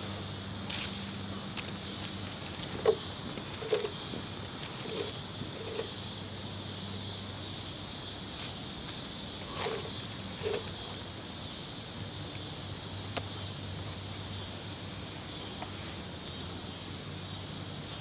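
Insects chirring steadily at a high pitch, over the occasional small crackle and pop of a campfire's glowing coals.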